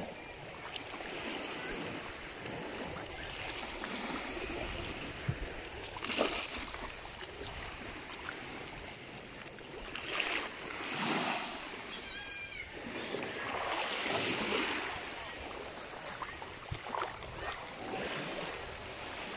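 Shore ambience: a steady wash of wind and small waves on shallow water, swelling several times, with a short run of high chirps about twelve seconds in.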